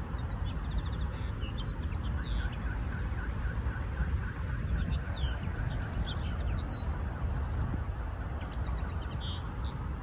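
Yellowhammer singing: a run of quick, evenly repeated short notes, with a few sharper falling chirps around it. A steady low rumble runs underneath.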